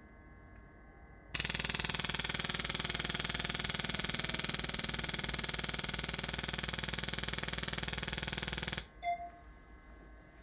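Pulstar chiropractic adjusting instrument firing a rapid train of pulses, a fast buzzing tap that starts suddenly about a second in and cuts off abruptly after about seven and a half seconds. A short beep follows.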